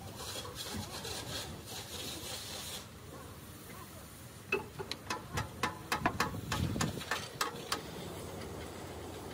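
Steel hand tools working on a heavy truck wheel. There are scraping and rubbing strokes for the first few seconds, then, about halfway through, a run of about ten sharp metal clanks over some three seconds, a few of them ringing briefly.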